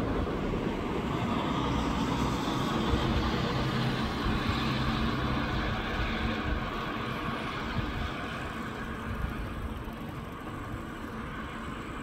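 Steady rumble of a distant motor vehicle, with a low engine hum that slowly fades away.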